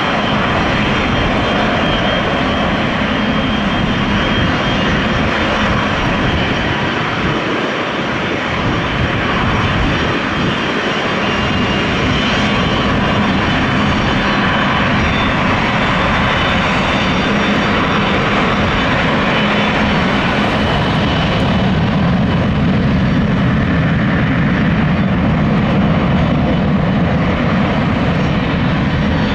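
Jet airliner engines running as aircraft taxi and take off: a loud, steady rush of engine noise that dips slightly about eight seconds in and grows a little louder in the second half.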